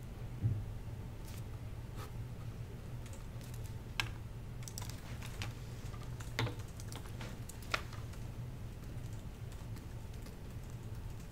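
Laptop keyboard typing: sparse, irregular key clicks over a steady low room hum, with a soft low thump about half a second in.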